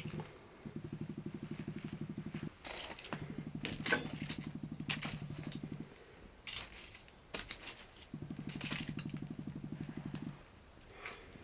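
Metal utensil clinking against a cast-iron Dutch oven several times, the sharpest clink about four seconds in, over a low, rapidly pulsing rumble that comes in spells of two to three seconds with short breaks.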